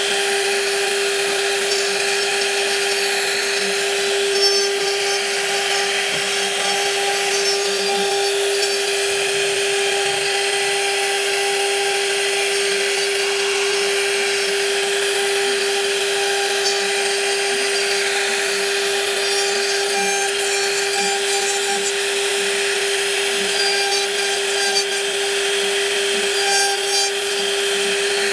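A power woodworking machine cutting wood, running with a steady, unchanging whine.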